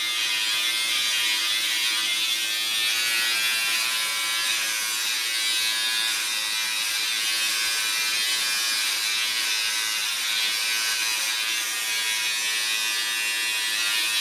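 Electric hair clippers running steadily, buzzing as they trim a child's short hair.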